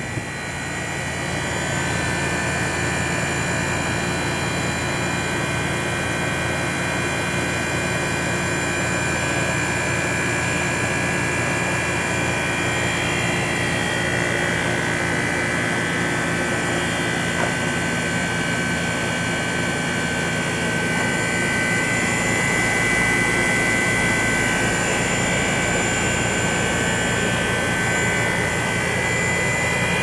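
Central air conditioner's outdoor condenser unit running steadily, its fan and compressor droning with several constant tones, while water mist sprays over the coil from misting nozzles fed by a compressor-switched solenoid valve.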